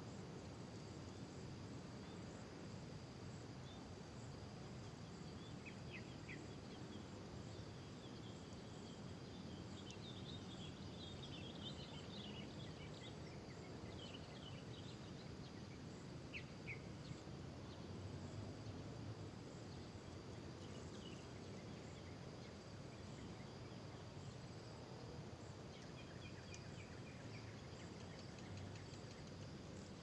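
Rural scrubland ambience: a steady high-pitched insect drone over a low rumble, with faint short bird chirps scattered through it, most of them in the middle and again near the end.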